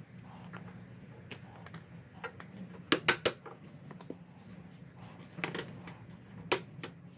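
Sharp light clicks and knocks as a metal speed square and pine beams are handled at a frame joint: a quick cluster of three about three seconds in, then single ones about two and a half and three and a half seconds later.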